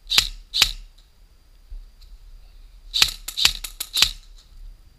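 Airsoft rifle firing: two single shots in quick succession, then a rapid string of about six shots about three seconds in, each a sharp crack.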